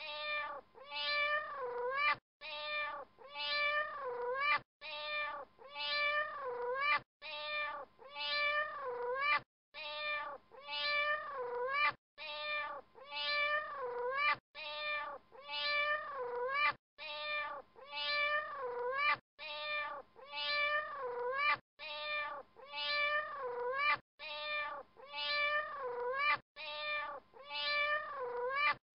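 Cat meows in a short sequence repeated as a loop, the same few calls coming back about every two and a half seconds, each repeat cut off abruptly.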